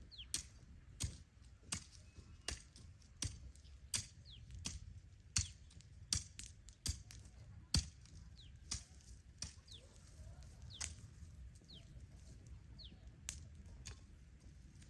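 Repeated sharp strikes, uneven, about one or two a second, with short high falling chirps between them.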